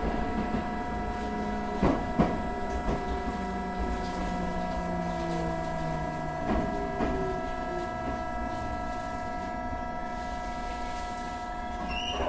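Tokyo Metro 8000-series armature-chopper train slowing into a station: a steady high whine from the chopper equipment over a motor hum that falls in pitch as the train slows. The wheels clack over rail joints about two seconds and six and a half seconds in, and a brief high squeal comes near the end.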